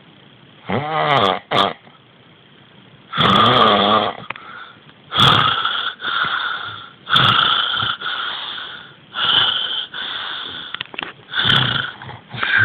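A man snoring heavily, about one loud snore every two seconds. The first snores are rattling with a wavering pitch; the later ones turn wheezy and whistling.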